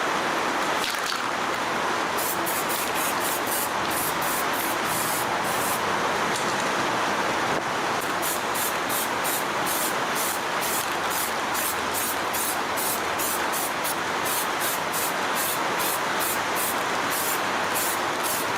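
Steady hiss of a spray, with quick, short, high hisses repeating about two or three times a second from about two seconds in.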